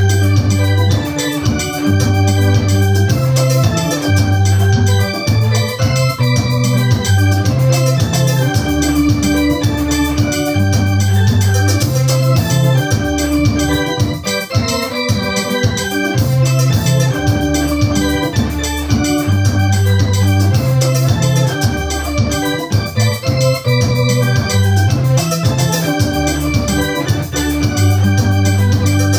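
Electronic arranger keyboard playing a Swahili hymn tune in full sustained chords over a deep bass line.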